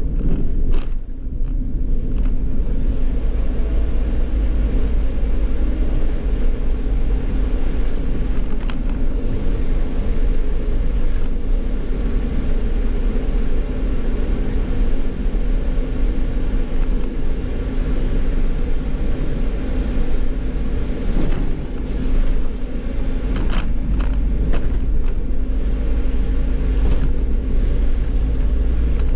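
Iveco CityClass city bus's Cursor natural-gas (CNG) engine and tyres, heard from the driver's cab while driving: a steady low rumble, with a few short clicks or rattles about a second in, near the middle and in the last third.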